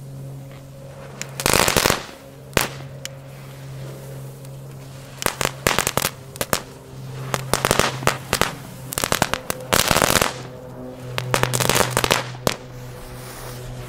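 Small ground spinner fireworks (Weco "Brummer") going off on paving: a steady low hum broken by repeated bursts of loud crackling, six or so clusters of rapid cracks about a second apart.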